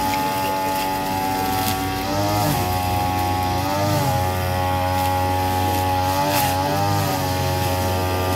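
A small engine running steadily, its pitch rising and falling back briefly several times as it is revved.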